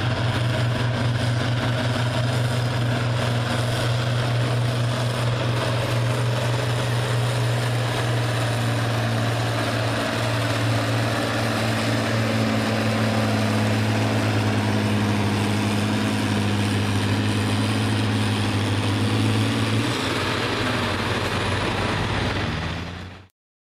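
John Deere farm tractor's diesel engine running hard under load during a tractor pull. It is a steady low drone with a slight change in pitch about 20 seconds in, then it cuts off suddenly near the end.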